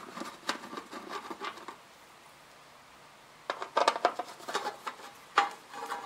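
A screwdriver turning out the screws of an electric water heater's access panel, making irregular small clicks and scrapes. They come in two bouts with a pause of about a second and a half between them.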